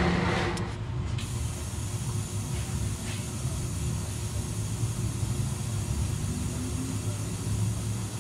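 A loud hiss fades out in the first half second, leaving a steady low mechanical rumble with a faint even hum and a few faint clicks.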